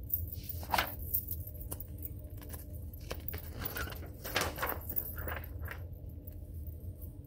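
A page of a large spiral-bound flip chart being turned over its wire coil binding: irregular paper rustling and light metallic clinking, busiest in the middle, over a low steady room hum.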